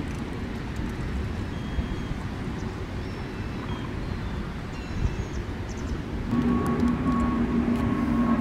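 Steady low outdoor rumble, with a few faint high chirps. About six seconds in, a louder steady droning hum joins it and holds on.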